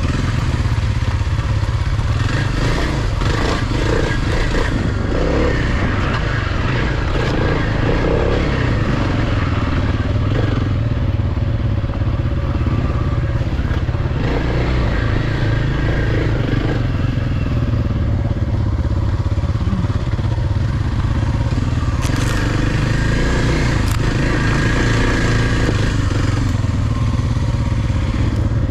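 Kawasaki KLX230's air-cooled single-cylinder four-stroke engine running as the dirt bike rides rough singletrack, with a few clattering knocks late on.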